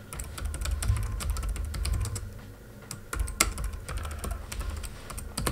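Typing on a computer keyboard: a quick, irregular run of keystrokes, with a short lull a little past the middle.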